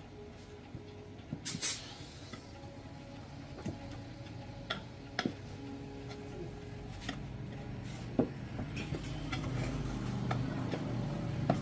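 Irregular light clicks and knocks over a low steady hum, with one short, louder noisy burst about a second and a half in.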